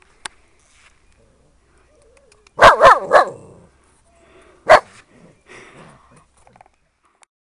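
Siberian husky puppy barking: a quick run of about three barks that fall in pitch, then one more sharp bark about two seconds later, followed by a few faint whimpers.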